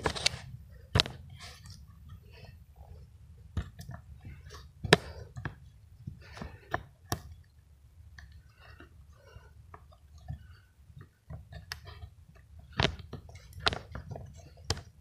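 Handling noise from a phone camera carried in the dark: irregular sharp clicks, knocks and crunches over a low rumble, the loudest knock about five seconds in.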